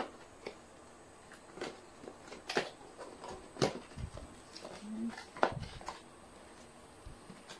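Cardboard box being opened by hand: scattered short taps, scrapes and paper rustles as the lid flaps are lifted and the paper inserts are pulled back, the sharpest clicks a little past halfway.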